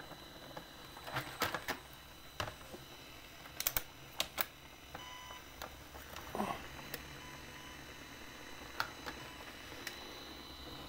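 Faint scattered clicks and taps of plastic cassette-recorder parts being handled and pressed together, a dozen or so irregular knocks with the busiest cluster in the middle, over a faint steady hum.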